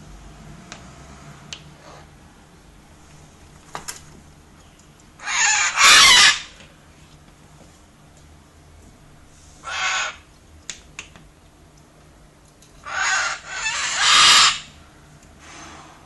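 White cockatoos giving harsh, loud screeches in three bouts: a double call about five seconds in, a short one near the middle, and a longer double call near the end, with a few light taps between.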